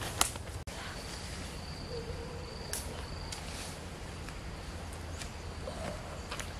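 Footsteps through grass and leaves outdoors, with faint bird calls and a steady low background rumble; a sharp click sounds just after the start.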